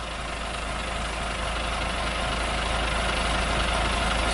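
Truck engine idling, growing steadily louder.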